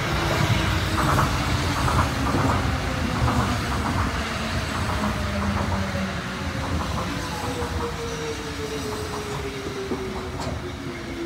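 Tokyo Monorail train running in alongside the platform: a low rumble with light clicks under a motor whine that falls slowly in pitch as the train slows.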